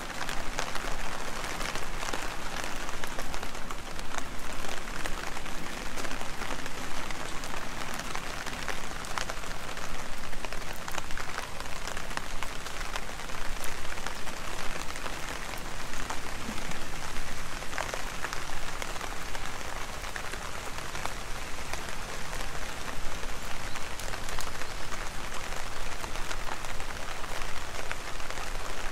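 Heavy rain falling steadily, a dense hiss with many close drops tapping sharply.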